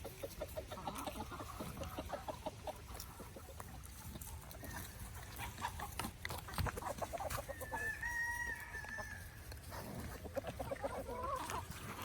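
Chickens clucking in rapid strings of short notes, with one longer, held call about eight seconds in.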